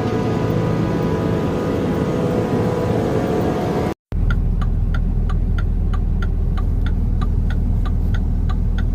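Vehicle engine running with a steady hum. After a cut about four seconds in, a deep engine rumble with a regular ticking about two and a half times a second.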